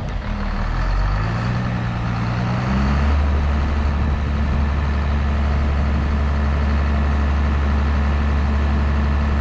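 Heavy diesel engine revving up over about three seconds, then holding a steady, louder run.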